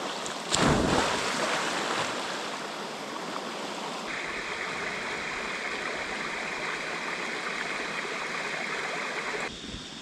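River water rushing steadily over rocks, with a brief louder surge about half a second in. From about four seconds in the rush is stronger and brighter, then drops back suddenly near the end.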